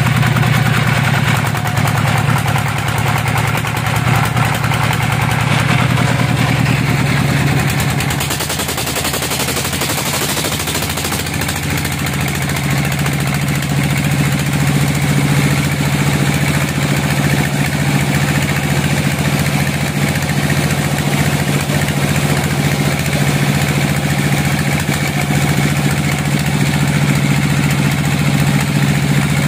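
Band sawmill running, its stationary engine turning the saw through V-belts with a steady hum. About eight seconds in the engine note weakens and a brighter hiss rises, and the engine note builds back strongly by about twelve seconds.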